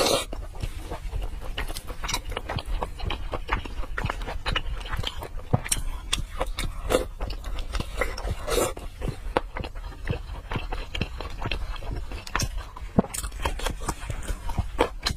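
Close-miked eating of soft braised pork: wet chewing and lip-smacking, with many small sticky clicks of the mouth throughout and a few longer wet slurps.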